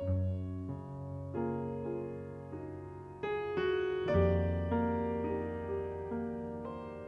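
Background piano music: slow chords with a melody on top, each new chord struck and then fading.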